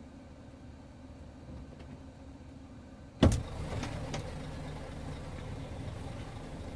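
Truck engine idling, left running for the air conditioning. A single sharp knock comes about three seconds in, and after it the idle sounds louder.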